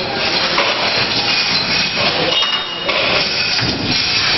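Spot welding on thin sheet steel: a dense run of clicks and knocks over steady workshop noise. A brief high whine comes a little past halfway.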